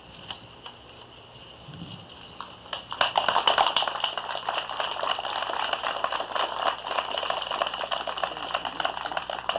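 Audience applauding, breaking out about three seconds in and carrying on steadily, as the plaque is uncovered.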